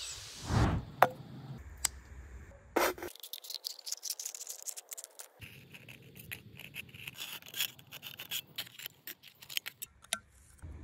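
Knife blade cutting through the thin wall of an aluminium drink can: a run of small crackles, clicks and scrapes as the metal tears and bends. A few sharp knocks come in the first three seconds.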